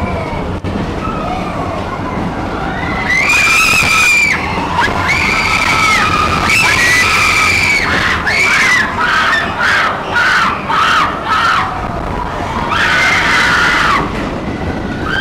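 Roller-coaster riders screaming over the rumble of the Expedition Everest coaster train on its track: long screams about three seconds in, again around six to seven seconds and near the end, with a run of short yelps in between.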